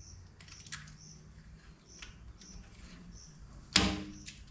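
Razor-blade scraper scratching and clicking as it peels a sticker off a metal skid steer door, with one loud ringing clank near the end.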